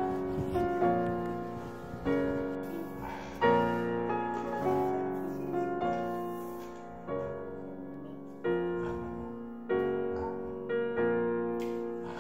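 Slow piano music: chords struck about once a second, each ringing and fading before the next.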